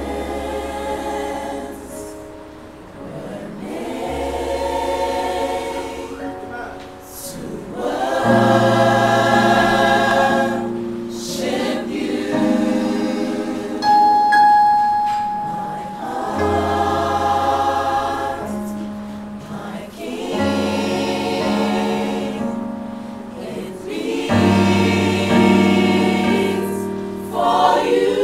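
Mixed choir singing a gospel worship song in harmony, in phrases of long held chords with short breaths between them, swelling louder as it goes. About halfway through a single thin steady tone sounds for a couple of seconds.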